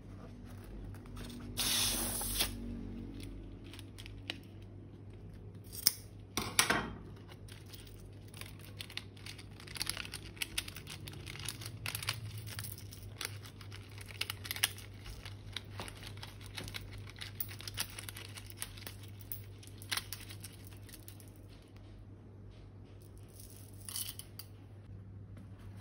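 Plastic piping bags and balloons of slime being handled: plastic torn or snipped open about 2 seconds in and again around 6 to 7 seconds, then a long run of small crackling clicks as the slime is worked, fainter near the end.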